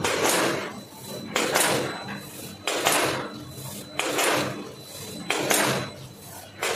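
Multihead weigher snack-packing machine cycling about once every 1.3 seconds: each cycle starts with a sudden metallic clatter that fades over about half a second, six in a row. A faint steady high whine runs underneath.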